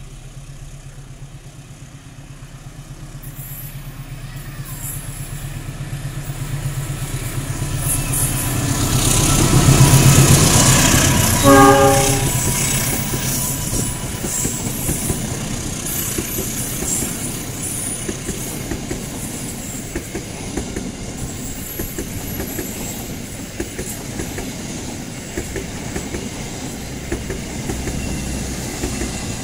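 A CC206 diesel-electric locomotive hauling a passenger train approaches and passes, getting louder to a peak about ten seconds in, with a short horn blast just after it goes by. Its stainless-steel carriages then roll past with a steady clickety-clack of wheels over the rail joints.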